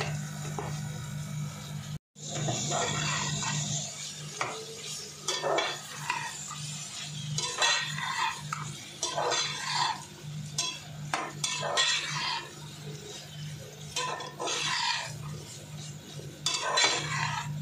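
Metal spoon stirring chopped chicken gizzards and liver through thick masala in a metal pan: irregular scrapes and clinks against the pan, over a steady low hum. The sound cuts out briefly about two seconds in.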